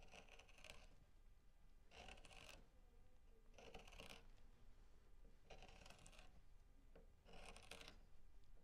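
A BeaverCraft K8a/14 short bent gouge pushed by hand through silky oak, hollowing a small spoon bowl. There are five quiet scraping cuts, each about half a second long, a little under two seconds apart.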